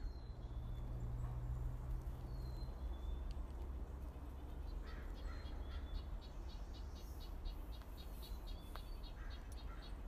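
Outdoor ambience: a steady low rumble, with a low hum for the first few seconds. From about halfway, a rapid, even, high chirping repeats about four times a second, with a few fainter chirps mixed in.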